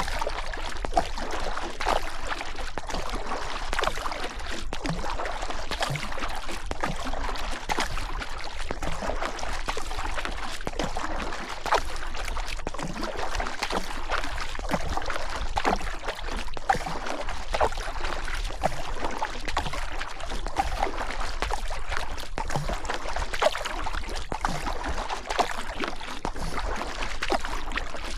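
River water flowing steadily with continual small splashes and gurgles.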